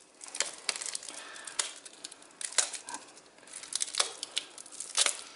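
Plastic shrink-wrap being torn and peeled off a small cardboard box, crinkling and crackling irregularly, with a short lull about three seconds in.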